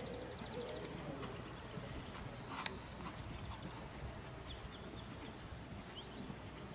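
Faint, muffled hoofbeats of a dressage horse trotting on a sand arena.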